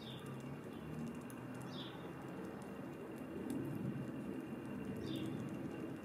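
Pigeon cooing low and soft, with three short high chirps from a small bird that fall in pitch: one right at the start, one near two seconds in, and one just after five seconds.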